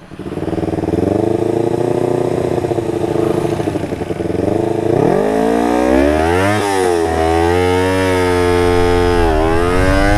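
Motorcycle engine through an aftermarket DX carbon exhaust, revved and held at high revs for a manual launch. The pitch climbs from about five seconds in and drops sharply twice, near the middle and near the end.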